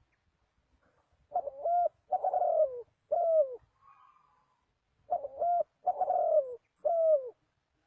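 Spotted dove (tekukur) cooing: two phrases of three low coos each, the last coo of each phrase falling in pitch. A fainter bird call sounds between the phrases.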